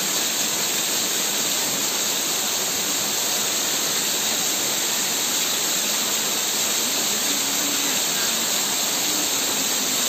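Waterfall pouring over rock into a plunge pool: a steady, even rush of falling water.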